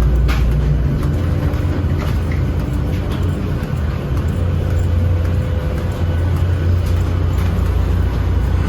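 Steady low hum inside the cabin of a parked Boeing 737-800, from its air-conditioning and ventilation during boarding, with a faint steady whine above it.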